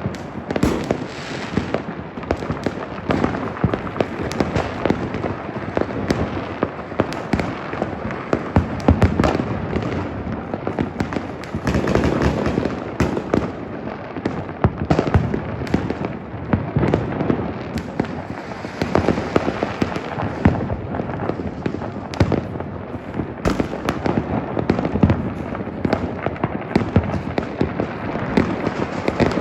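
Fireworks and firecrackers going off without letup: a dense, continuous crackle of many overlapping bangs and pops.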